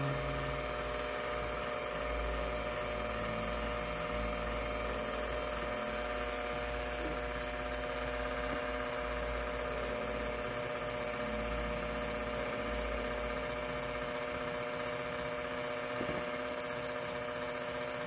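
Luxel electric hand mixer running steadily, its beaters whipping egg whites into meringue. Near the end its low rumble drops away.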